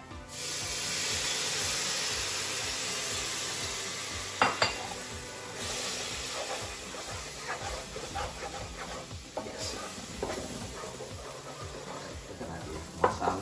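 Water poured into a hot pan of frying onion, garlic and ground spices hisses and sizzles at once, loudest in the first few seconds and easing off over about five. A spoon then stirs and scrapes the mixture in the pan, with a couple of sharp knocks about four seconds in.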